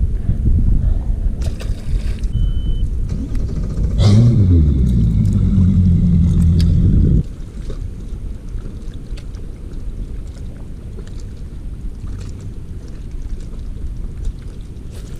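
A boat motor starts about four seconds in with a brief rise in pitch, runs with a steady low hum for about three seconds and cuts off abruptly. Low rumbling background noise fills the rest.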